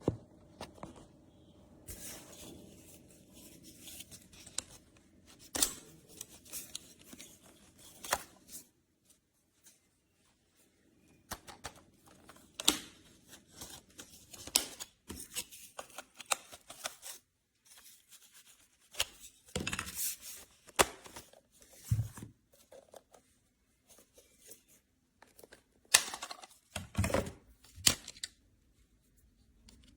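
Scattered clicks, taps and short scraping rustles of objects being handled, at irregular times, with a faint low hum through the first several seconds.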